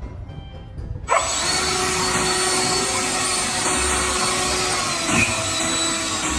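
A small motor running with a steady, loud whir that starts suddenly about a second in.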